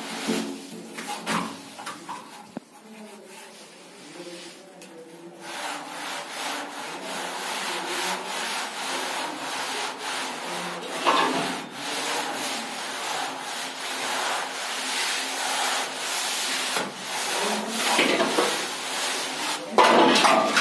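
Long wooden straight-edge scraped across wet wall plaster, a rough rubbing. A few short strokes at first, then continuous scraping from about five seconds in, with louder strokes near the middle and the end.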